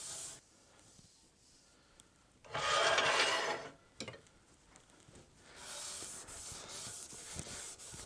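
Hand rubbing and scrubbing on a lathe's metal bed ways to buff off surface rust. There is one loud hissing burst of about a second near the middle, then a run of repeated back-and-forth rubbing strokes in the second half.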